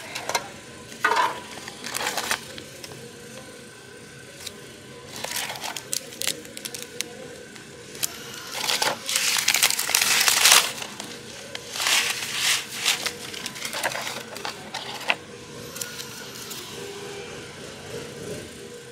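Plastic and foil packaging of a self-heating hot pot being handled: the plastic lid and inner tray clatter as they are lifted out and set down, and foil pouches crinkle. The rustles and knocks come irregularly, busiest about halfway through.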